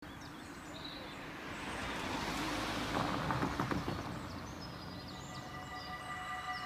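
A passenger car drives past and over a railway level crossing, its tyre and engine noise swelling and fading, with a few quick knocks as the wheels cross the rails about three seconds in. Small birds chirp in the background.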